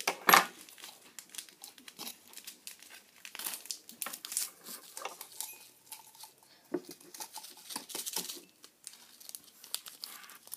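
Small packets of popping candy crinkling and tearing as they are opened and emptied into a cup, in irregular rustles, loudest just after the start.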